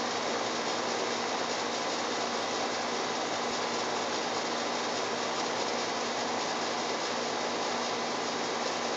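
Steady, unchanging machine-like noise: an even hiss with a faint hum under it, with no breaks or single events.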